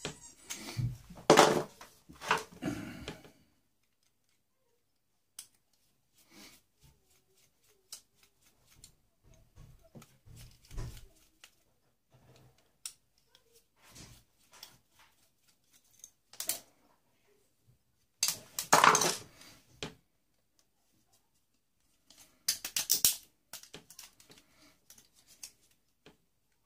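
Hand dismantling of a boombox for scrap: irregular clicks, clatters and rattles of small plastic and metal parts being handled, pulled and put down. The loudest clattering comes in bursts near the start and about two-thirds of the way through.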